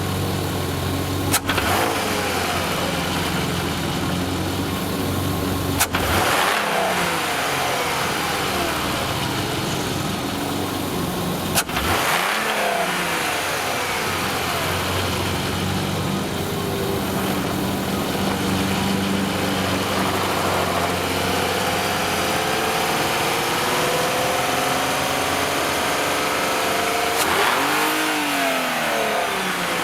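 Volkswagen Jetta GLI's 24-valve VR6 engine running with a rattle and poor sound, blipped a few times so its pitch falls and rises. Sharp clicks come four times. The rattle comes from worn intake manifold shifter rod bushings and a vacuum leak at the shifter rod gasket.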